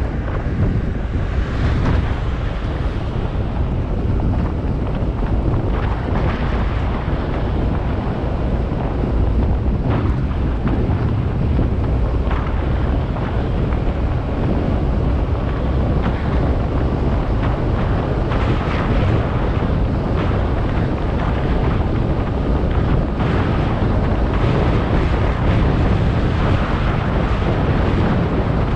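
Loud, steady wind noise against the microphone.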